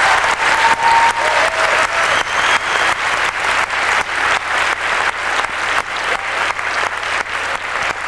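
Audience applauding, with one pair of hands close by clapping in an even beat of about three claps a second over the crowd.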